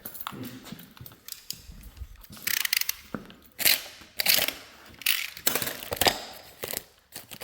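Metal brake hardware and hand tools being handled: irregular clicks and clinks with several short rasping bursts.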